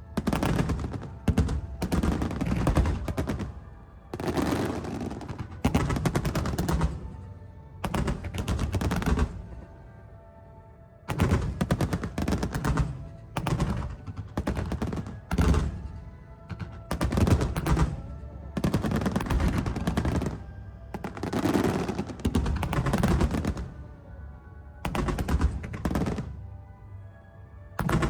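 Aerial fireworks bursting in rapid barrages, dense clusters of crackling reports a second or two long following one another, with a short lull about ten seconds in.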